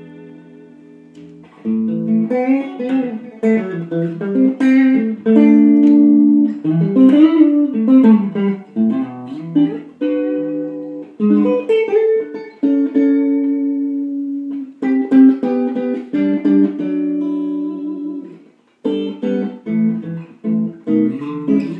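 Gretsch G6128TDS Duo Jet electric guitar played: a soft chord rings out, then from about a second and a half in come loud picked single-note runs mixed with chords, with a brief break near the end.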